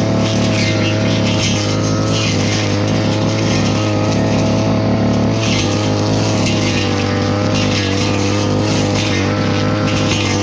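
Petrol brush cutter engine running steadily at high speed while cutting weeds, its pitch wavering slightly and dipping briefly about halfway through.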